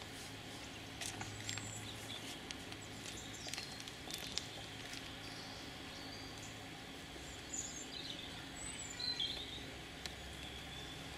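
Quiet outdoor ambience with a steady low hum and scattered light clicks. A few short bird chirps come in the second half.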